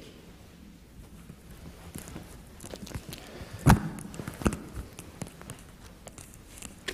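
Close handling noise at the pulpit: soft rustling with a few sharp knocks, the loudest just under four seconds in and a second about a second later.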